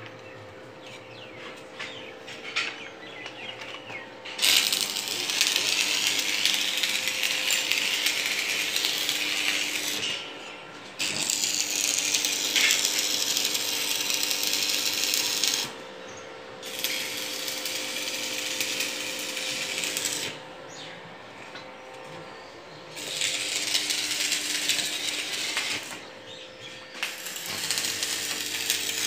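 Stick arc welding on a steel window grill: the electrode's arc crackles and sizzles in five runs of several seconds each, with short pauses between them. A steady hum runs underneath.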